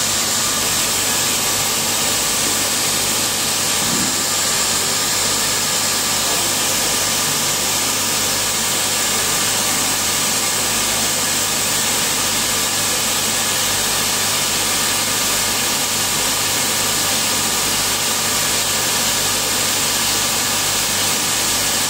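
Steady machine hum and hiss from the equipment of a running helicon plasma source, with a strong high hiss, several steady whining tones and a low hum.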